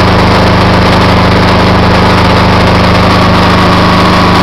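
Perkins 402C two-cylinder diesel engine running steadily at raised throttle, its note even and unbroken: a repaired engine running fine with no miss.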